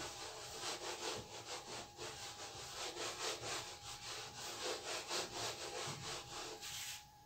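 Whiteboard eraser rubbing back and forth across a whiteboard, wiping off marker writing in quick repeated strokes, about three a second, that stop just before the end.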